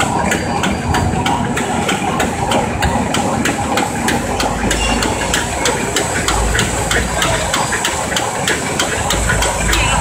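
Automatic napkin tissue making machine running, with a steady mechanical din and a regular rapid clatter of several knocks a second.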